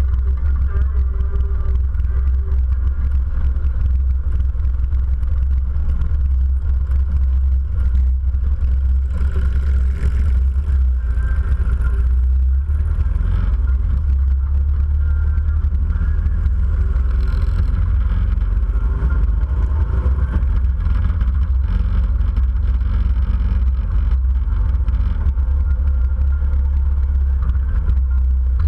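Motorcycle running at road speed, a steady low rumble mixed with wind noise on the microphone.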